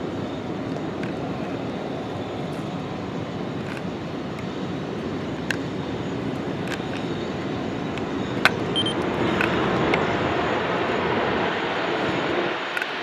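Jet airliner engines running steadily, a broad rushing noise that swells about two thirds of the way through.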